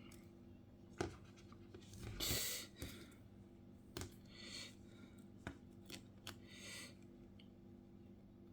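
Small hand tool working at glass on an iPhone 7 screen: a few faint sharp clicks and several short scrapes, spaced unevenly over several seconds.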